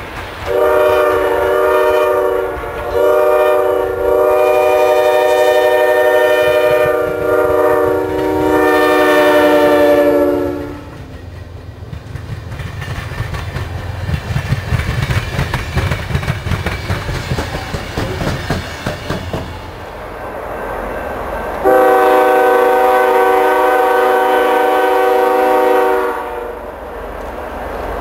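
Amtrak passenger train's locomotive air horn blowing a series of long blasts, a chord of several notes, over about ten seconds as the train approaches. The rumble and clickety-clack of the passing double-deck Superliner cars follow, and a train horn sounds once more near the end in one long blast of about four seconds.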